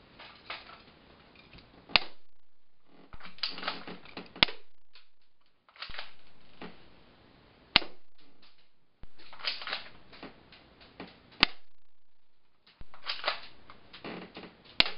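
Airsoft gun fired about five times, one sharp crack roughly every three seconds, each shot preceded by a second or two of rattling and clattering.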